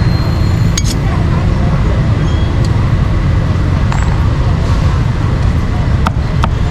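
Busy street-market ambience: steady traffic noise and background voices, with a few short sharp clinks.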